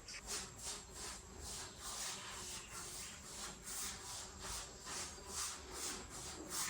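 Faint repeated scraping strokes at a steady pace of about three a second, like rubbing or sawing on a hard surface.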